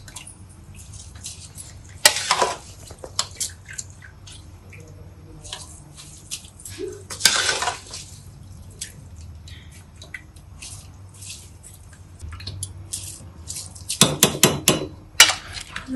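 Metal spoon clinking and scraping against a metal bowl as washed rice is scooped out and dropped into a pot of boiling spiced water, with wet splashes as each spoonful lands. Louder splashes come about two and seven seconds in, and a quick run of sharp clinks comes near the end.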